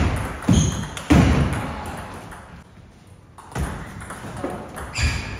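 Table tennis rally: the ball cracking off rackets and bouncing on the table, sharp hits that ring on in the hall. Several hits come in the first second, then a short lull, then more from about three and a half seconds in.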